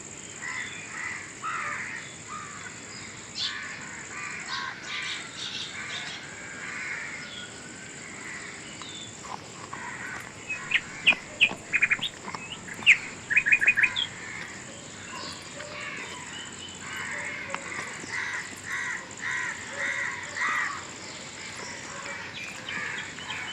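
Birds calling outdoors: repeated harsh calls throughout. A run of loud, sharp, rapid chirps comes about halfway through. A steady high-pitched whine sounds underneath almost the whole time.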